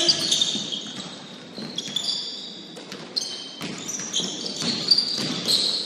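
Basketball game in a gym: the ball bouncing on the court several times, with the players' movement on the floor.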